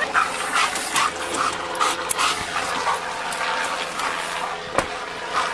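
Police K9 dog panting hard with whines, in a quick rhythm of about two to three breaths a second, while working a track through brush. There is rustling through the undergrowth, and a sharp click shortly before the end.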